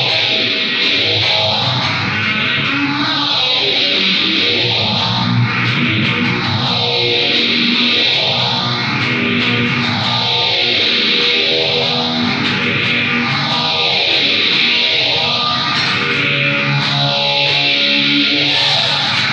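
Electric guitar playing hard rock, run through a sweeping effect that rises and falls about every three seconds.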